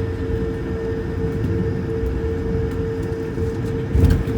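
Cabin noise of an Airbus A220-300 with its Pratt & Whitney geared turbofan engines running: a steady low rumble with a constant hum above it. A brief thump comes about four seconds in.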